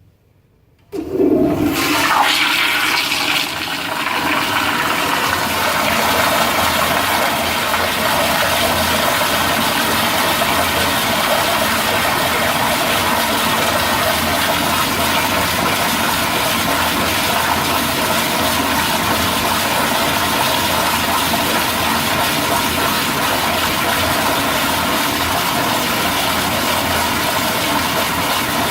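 Toilet flushing: a sudden loud rush of water about a second in, settling into a long, steady rushing of water that does not let up.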